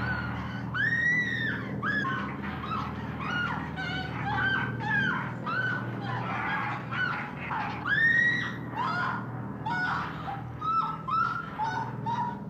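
A young woman screaming in terror: a long string of short, shrill shrieks, each rising and falling, coming about every half second and loudest around the middle. A steady low hum runs underneath.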